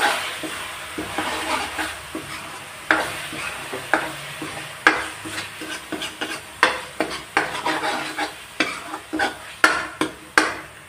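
Steel spoon scraping and stirring a thick masala paste around a steel kadai as it fries in oil, the spices being roasted (bhuna) into the onion-tomato base. Irregular sharp scrapes of metal on metal, about one or two a second and quicker in the second half, over a low frying sizzle.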